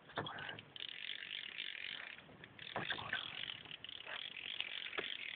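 Fishing reel being cranked as a fish is reeled in: a fast clicking whir that pauses briefly about two seconds in and then resumes.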